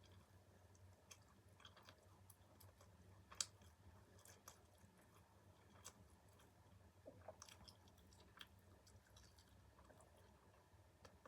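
A person chewing food close to the microphone, faint, with scattered small wet mouth clicks and one sharper click about three and a half seconds in.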